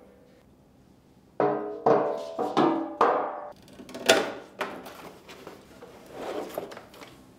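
Background music of short, ringing percussive notes at about two a second, starting about a second and a half in.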